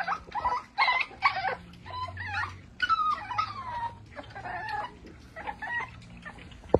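Several young micro exotic bully puppies whining and squealing in many short, high-pitched cries, some sliding down in pitch.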